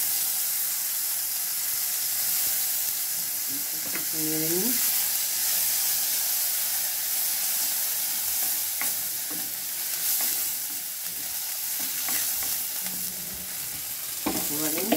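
Green chillies, garlic and ginger frying in hot oil in a granite-coated kadai: a steady sizzle, with a wooden spatula stirring and now and then tapping the pan.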